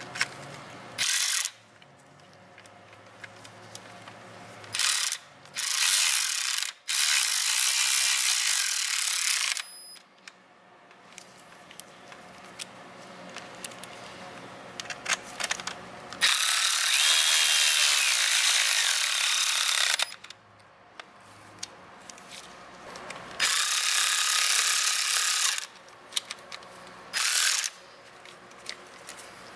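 A ratchet wrench with an extension runs bolts down as the engine wiring harness is tightened onto the intake manifold. It goes in several runs of one to four seconds, with quieter gaps of light clicking between them.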